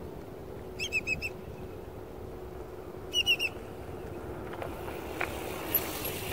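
Bicycle bell rung twice, each time a quick run of about four dings about two seconds apart. Then faint tyre noise on the dirt path as the bike rolls past.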